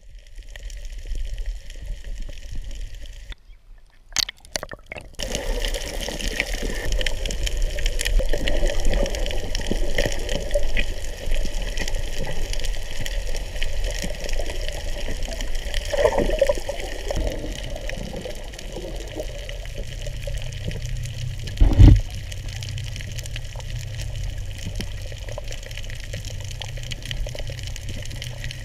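Water sloshing and rushing against a camera held underwater, a muffled, steady wash. A single sharp knock comes about two-thirds of the way through.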